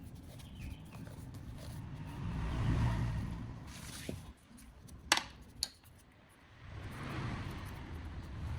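Handling noises on a work surface: low rumbling and shuffling, with two sharp clinks about half a second apart midway.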